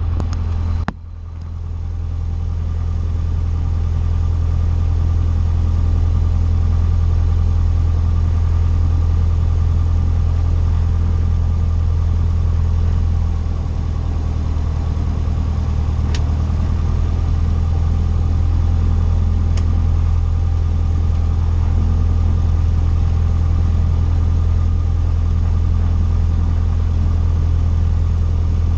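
Cessna 150's four-cylinder Continental O-200 engine running with a steady drone, at an even pitch throughout. There is a sharp click about a second in.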